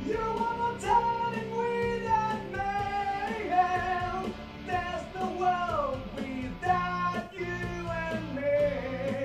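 Playback of a rock song's vocal take over studio monitor speakers: a singer holding long, sliding notes over guitars and band.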